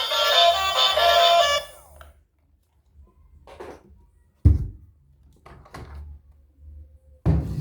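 A toy vehicle's electronic sound module plays a beeping tune that cuts off about two seconds in. Then come a few light knocks of plastic toys being handled, with one sharp thunk near the middle. A toy siren starts just before the end.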